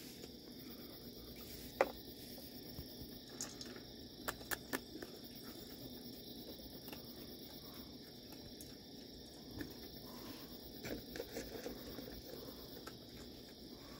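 Faint, steady chorus of night insects chirring, with a few short clicks and taps scattered through it from raccoons feeding at a metal bowl of crackers.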